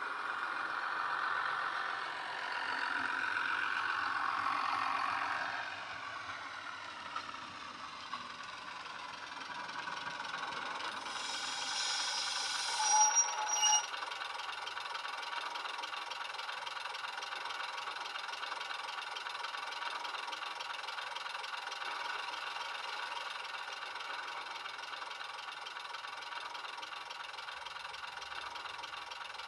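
Sound decoder in a Bachmann OO gauge Class 101 DMU model, playing a recorded diesel multiple unit engine through a small onboard speaker. The engines change note over the first few seconds. About twelve seconds in there is a burst of hiss with two short tones, and then the engines idle steadily as the unit stands.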